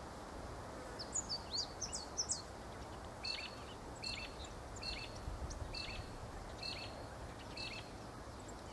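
A bird calling: a quick run of high sweeping chirps for about a second and a half, then a short two-note call repeated six times, roughly once every 0.8 s. Steady low background noise runs underneath.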